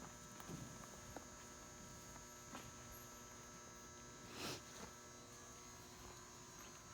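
Near silence: a faint steady electrical hum, with a few soft brief noises, the most noticeable a short swish about halfway through.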